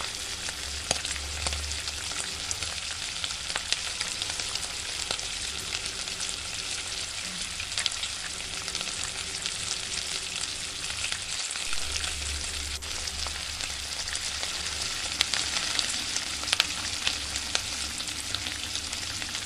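Mutton keema bubbling and sizzling in oil in an uncovered pot, a steady crackling sizzle with many small pops. The yogurt's water has cooked off and the oil has risen to the top, so the mince is now frying in its own separated oil.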